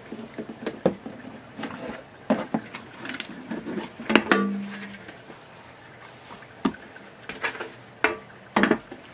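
Knocks and clatter of a Technics SL-D30 turntable being flipped over and set down upright, its plastic base and dust cover bumping and rattling; one louder knock about four seconds in rings briefly.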